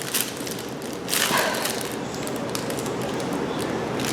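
Rustling and light tapping as a diamond-painting canvas and its packaging are handled, growing louder about a second in.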